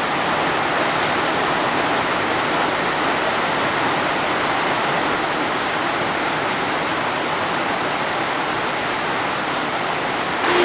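Heavy rain pouring down, a dense steady hiss with no let-up.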